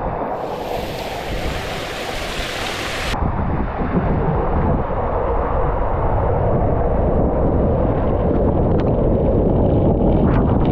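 Rushing water and wind buffeting the microphone of a camera riding down a water slide. A harsher, hissing layer cuts off suddenly about three seconds in, and the rush gets a little louder after that.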